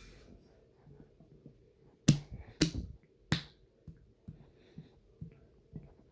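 Water sloshing in a person's stomach, making sharp splashing slaps: three loud ones about two to three seconds in, then softer ones about twice a second.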